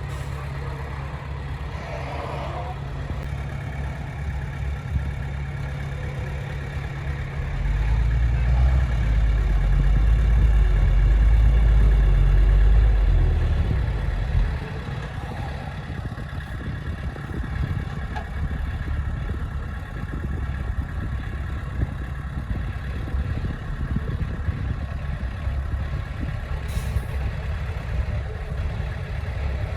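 Heavy machine's diesel engine running steadily. It grows louder and deeper for about seven seconds in the first half, as if working under load, then settles back.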